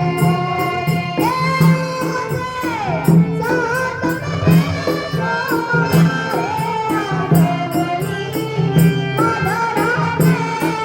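A schoolgirl singing a folk-style Indian song in long, held, ornamented notes over a steady percussion beat.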